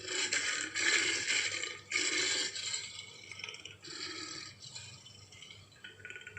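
Big-cat vocal sound effect made for an American lion: a run of harsh, hissing snarls, three strong ones in the first two and a half seconds, then weaker ones about four and six seconds in.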